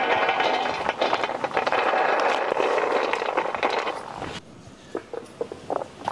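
Vegetable preparation: a dense, continuous rustling clatter for about four seconds, then a few separate sharp taps of a kitchen knife cutting green beans on a wooden chopping board.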